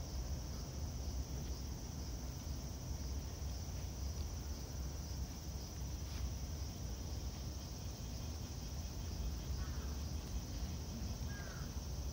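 Outdoor ambience: a steady low rumble with a few faint clicks, and two short bird chirps near the end.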